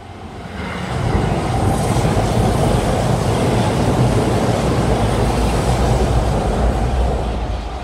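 Keihan 2600-series electric commuter train running past along the platform track, a steady rumble of wheels and motors that builds over the first second and starts to fade near the end as the train moves away.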